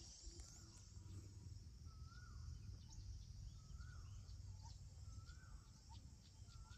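Faint outdoor ambience: a bird repeats a short rising-and-falling whistled note about every one and a half seconds over a steady high insect hum, with a low rumble underneath.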